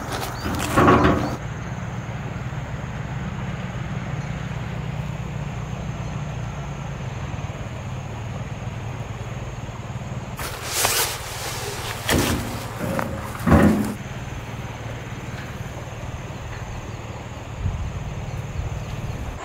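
A steady low hum with a light hiss, with sawdust tipped onto a pile, rattling and pattering, about a second in. A few short knocks and scrapes come later.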